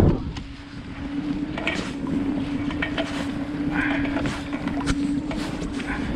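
Small outboard motor on an inflatable boat running with a steady hum, under wind buffeting the microphone.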